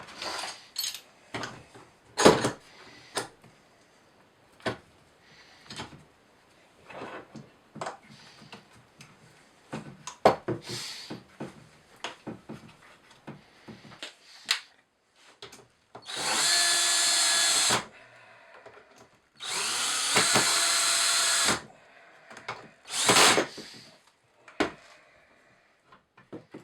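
Power drill running in two bursts of about two seconds each, with a steady pitched whine, amid scattered knocks and clatters of wood and tools being handled.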